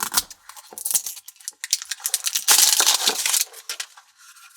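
A Paw Patrol Mash'ems blind package being torn open and handled: crinkling wrapper and clicking plastic, with a denser crackle of the wrapper about two and a half seconds in.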